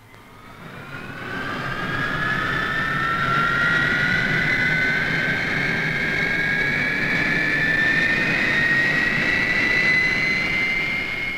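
Hawker Hunter's Rolls-Royce Avon turbojet starting up: a whine that rises slowly and steadily in pitch as the engine spools up, over a rushing noise. It grows louder over the first two or three seconds, then holds.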